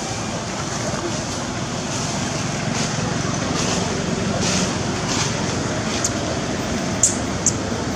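Steady outdoor background noise, like distant traffic or wind, with two short sharp clicks near the end.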